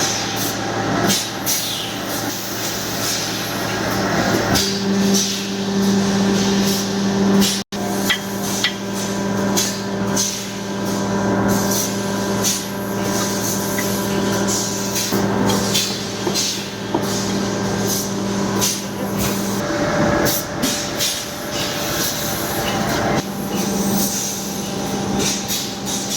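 Steady machine hum mixed with frequent sharp metal knocks and taps, like hammering and tool work, during work on a 20 HP compressor. The hum cuts out briefly about a third of the way in and eases for a few seconds later on.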